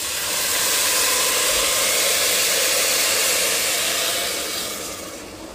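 Water poured from a glass into a hot pot of sautéed rice, hissing and steaming as it hits. The hiss starts with the pour, holds steady, then dies down near the end.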